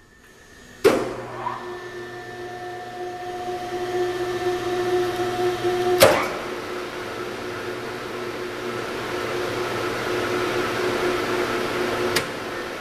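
Esmach spiral mixer's electric motor switched on with a sharp click about a second in, then running with an empty bowl with a steady pitched hum. A second loud clunk about six seconds in changes the running sound to a louder, noisier whir, and a third click near the end changes it again.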